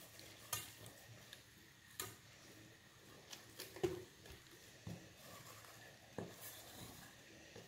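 Faint stirring of flour and a little milk into a paste for béchamel, a utensil scraping and lightly tapping its container about half a dozen times at irregular intervals.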